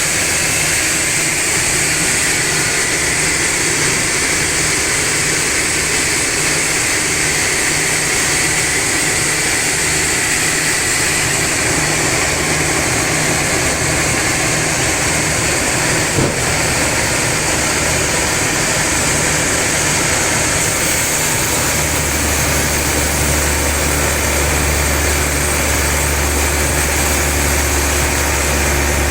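Log sawmill machinery running steadily while sawing a large trembesi log. There is a single short knock a little past the middle, and a deeper, stronger hum sets in about three quarters of the way through.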